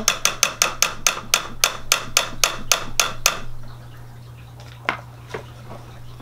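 A metal spoon knocking against a stainless steel cooking pot: about twenty quick, even strikes, about six a second, that stop about three seconds in, followed by two faint clicks.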